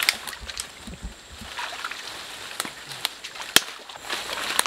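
Water sloshing and splashing as people wade through a stream, with a few sharp clicks or snaps, the loudest about three and a half seconds in.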